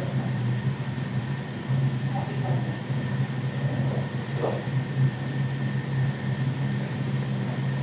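Steady low machine hum with a thin, faint high whine above it, like an appliance or air-conditioner motor running, with a couple of faint short knocks or voices about two and four and a half seconds in.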